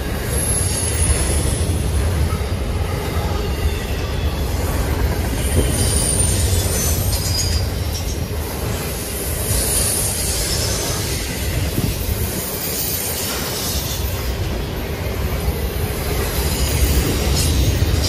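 Freight train cars rolling past with a steady low rumble, the wheels giving thin high squeals that come and go several times.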